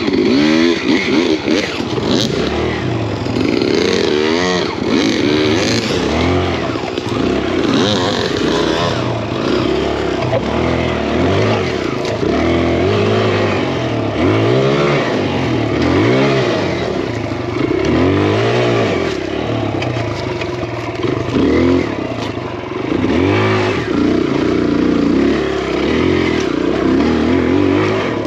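Single-cylinder four-stroke engine of a big-bored Kawasaki KLX dirt bike, revving up and down again and again, a burst every second or two, as it is throttled up a steep, rough trail.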